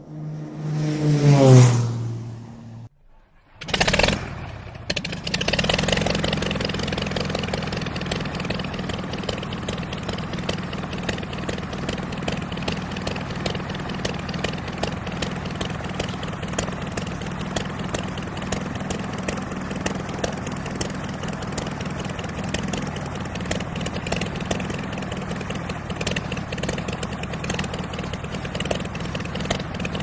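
Piston propeller-plane engine: a rising whine for about two seconds, a short burst, then the engine running steadily with a fast, even pulsing beat.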